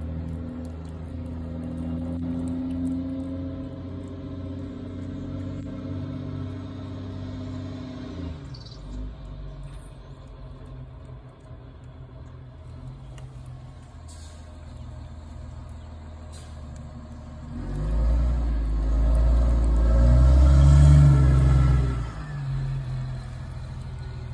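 A low engine hum, then a big truck going by: its rumble swells about three quarters of the way in, peaks, and drops away shortly before the end.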